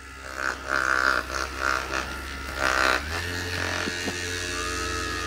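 Two handheld vibrating massage balls, a RubBall and a Hyperice Hypersphere, buzzing at their second speed setting. The buzz wavers for the first few seconds. About three seconds in it changes, as the RubBall's speed button is pressed, then holds steady.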